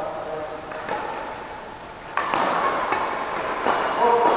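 Badminton rally in a large echoing hall: a sharp racket strike on the shuttlecock about two seconds in, a lighter knock about a second in, and squeaking shoes on the court floor near the end.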